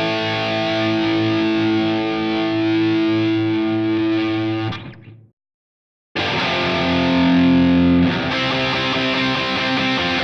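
Electric guitar played through the JamUp amp-simulator app with a distorted tone, ringing out sustained notes and chords. The sound fades and cuts to silence a little under five seconds in, then the playing comes back abruptly about a second later.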